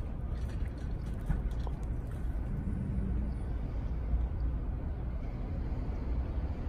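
Steady low rumble of outdoor parking-lot noise, with a few faint clicks and rattles.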